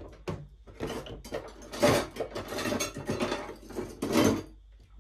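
Irregular clinking and clattering of a hand mixer's metal wire beaters as they are handled and fitted, with no motor running.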